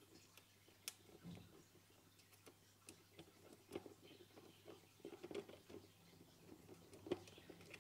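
Faint, scattered clicks and light taps of hands handling a clear acrylic enclosure's top and turning a small screw with an Allen key.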